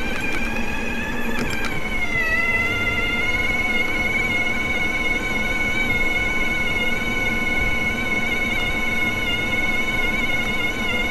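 CYC Photon Gen 2 mid-drive e-bike motor whining under full 2 kW throttle, hard loaded on a steep climb: a steady high whine that dips slightly in pitch about two seconds in, over a low rumble.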